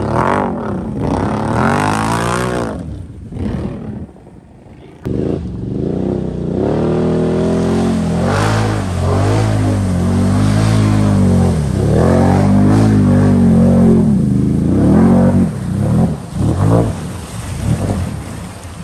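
Can-Am Outlander XMR ATV's V-twin engine revving hard in repeated rises and falls as it churns through deep mud and water, with water and mud splashing. It eases off briefly about four seconds in, then a cut, and it holds high revs under load through the middle before dropping back near the end.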